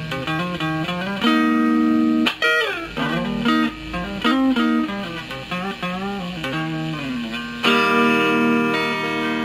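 Clean-toned Strat-style electric guitar played through a Kokko Mini Compressor pedal. It plays a single-note melodic lead with string bends and slides, with notes held briefly about a second in and again near the end.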